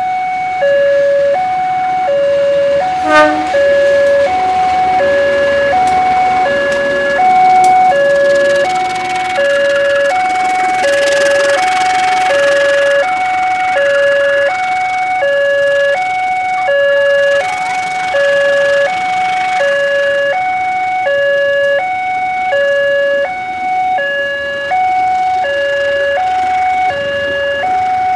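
Railroad crossing electronic warning alarm sounding two alternating tones, high and low, each held about half a second, repeating steadily. A passenger train passes, its running noise swelling in the middle, and a short loud falling-pitch sound comes about three seconds in.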